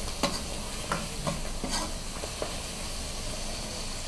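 Stir-frying in a wok: a metal ladle scraping and tapping against the wok over a steady sizzle of spinach, wood ear and glass noodles. The ladle clicks come several times in the first two seconds, then the sizzle carries on alone.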